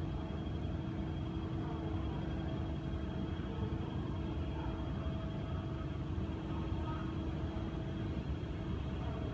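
Underground railway platform ambience: a steady low rumble with a constant hum running through it and no change from start to finish.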